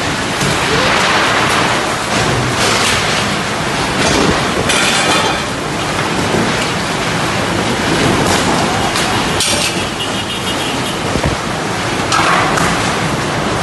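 Tornado-force wind and driving rain rushing steadily and loudly, with a few short knocks.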